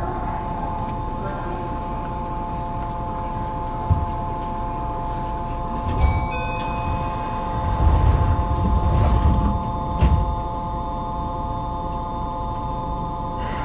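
Yokohama Municipal Subway 3000A-series train: a steady hum of several tones from its electrical equipment over a low rumble. There are thumps about four and six seconds in, a short beep just after six seconds, and a louder rumble about eight to ten seconds in.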